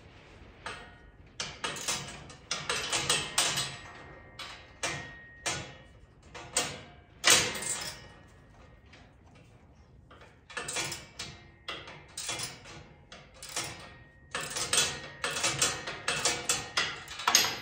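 Ratchet wrench clicking in quick runs with short pauses between strokes as a nut is tightened onto a grill-guard mounting bolt, with one louder metal click about halfway through.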